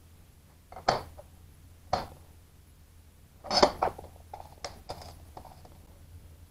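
Metal hand tools clanking on a metal-topped workbench and aluminum sheet: a speed square set down and a tape measure picked up and handled. Sharp clanks about one and two seconds in, the loudest cluster about three and a half seconds in, then a few lighter ticks.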